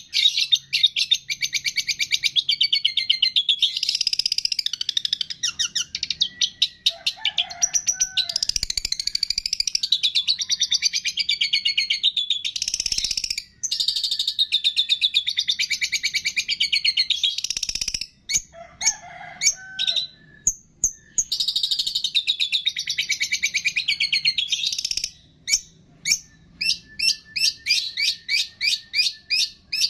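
Songbird singing a fast, dense chattering song of rapid chirps and trills, with a few short breaks. Near the end it turns into a run of separate sharp chirps, about two or three a second.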